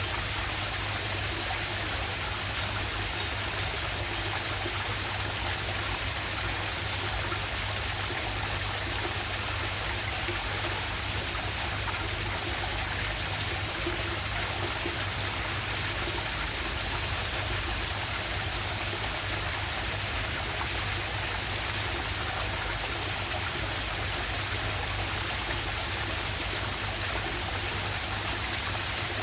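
Small waterfall and stream water rushing steadily, a constant even wash of noise.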